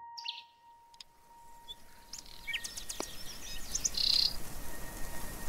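Birds chirping and calling in short whistled and gliding notes, growing louder over the first few seconds.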